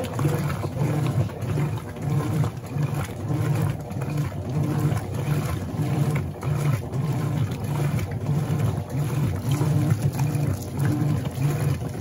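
Electrolux LB12Q top-loading washing machine on turbo agitation: the agitator swings back and forth through a load of towels in soapy water. It makes a regular, low churning pulse, about two to three strokes a second, with water sloshing over it.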